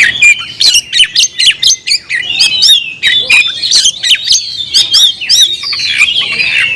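Oriental magpie-robin (kacer) singing a loud, fast, unbroken song of varied whistles mixed with harsh, rasping chatter notes: a challenge song directed at a rival.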